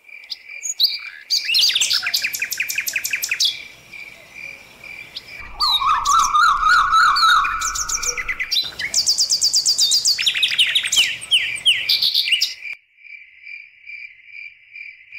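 Chirps, trills and songs from several different birds, changing abruptly every second or two, over a steady pulsing high-pitched trill. Near the end the other calls stop and only the pulsing trill remains.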